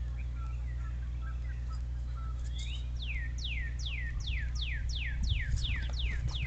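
A songbird singing a rapid series of about eleven down-slurred whistles, roughly three a second, starting about two and a half seconds in, after a few faint scattered chirps. A steady low hum runs underneath.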